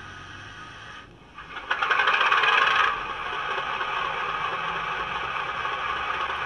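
Hornby Class 31 DCC sound decoder playing its diesel engine start-up through the model's small speaker. After a brief pause about a second in, there is a loud rattling burst as the engine fires, a warm start, and it then settles into a steady idle.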